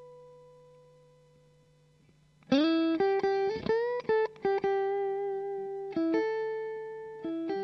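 Clean electric guitar lead from a Stratocaster-style guitar through a Kool Amplification Blue Sky 35-watt 6L6 valve combo. A held note rings and fades away over the first two seconds; then, about two and a half seconds in, a bluesy single-note lick starts with quick bent notes, followed by longer held notes.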